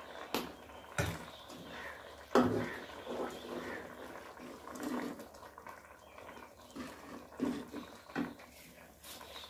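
A few sharp clinks of a metal spoon against an aluminium cooking pot and a plate as ghee is spooned into a simmering halwa mixture, then faint sounds of the pot cooking with scattered short faint calls in the background.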